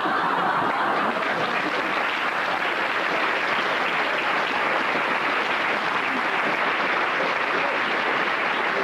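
Theatre audience applauding steadily, a dense crackle of many hands clapping.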